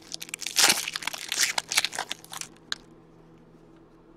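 Trading card pack wrapper crinkling and tearing as an Upper Deck SPX hockey pack is ripped open by hand, a dense crackle for about three seconds that then stops.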